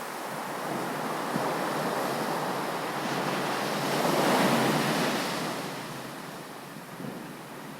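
Ocean waves breaking on a beach: a wave builds, washes in most loudly around the middle and recedes, with wind on the microphone.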